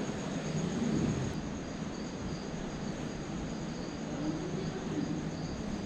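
Crickets chirping: a steady, high, pulsing trill over low background noise.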